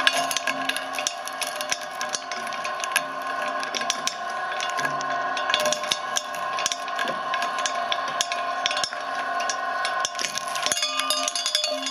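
Filamaker shredder's rotating cutter blades crushing hard candy, with a steady whine from the motor drive under rapid cracking and snapping as the pieces break between the blades. The crackling briefly drops about ten seconds in, then comes back harder as a fresh load reaches the cutters.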